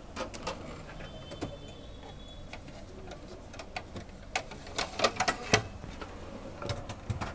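Irregular sharp ticks and pops from a kadhai of arbi-leaf patode shallow-frying in oil, scattered at first, then bunched around five seconds in and again near the end.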